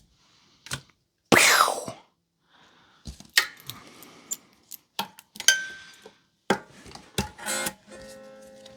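Small metal tools clinking and knocking against an electric guitar during a setup adjustment. Near the end a guitar string is plucked and rings on.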